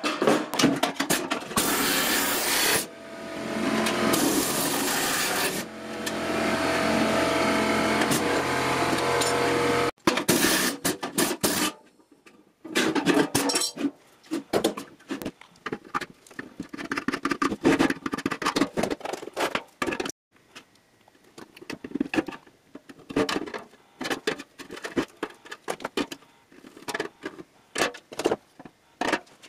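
Power drill running as it bores through the sheet steel of an ammo can, its motor pitch dropping and picking up as the bit bites, for about ten seconds before it stops abruptly. Then come irregular short scraping and tapping sounds of hand tools on the steel can.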